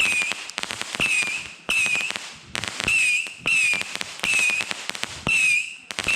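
A multi-shot fireworks cake firing in rapid succession, about nine shots in a row. Each shot gives a brief wavering whistle followed by crackling pops.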